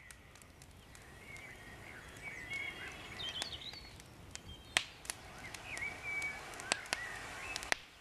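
Woodland birds chirping and warbling, with sharp pops and crackles from a small wood campfire scattered through it.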